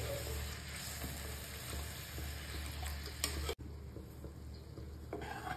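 Metal ladle stirring thin, freshly watered curry gravy in a metal kadai, with a soft sizzle from the pan. The sound breaks off sharply about three and a half seconds in and carries on quieter.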